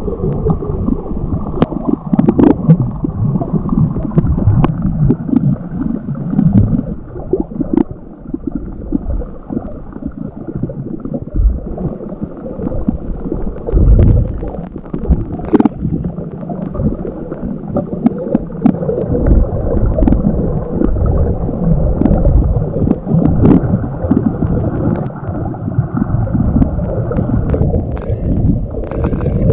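Muffled underwater sound heard through a GoPro's waterproof housing: an uneven low rumble of moving water around the camera, with scattered faint clicks.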